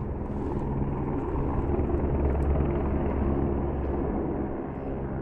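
Low-flying helicopter hovering, a steady low rotor-and-engine drone that swells slightly in the middle and eases a little near the end.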